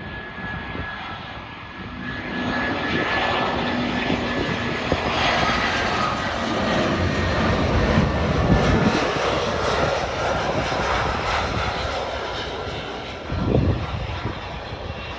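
Jet engines of an Airbus A320-family airliner on final approach with its landing gear down, passing by: a rushing engine noise with a thin whine over it, building to a peak about halfway through and then easing as the aircraft moves off down the runway. A short low rumble comes near the end.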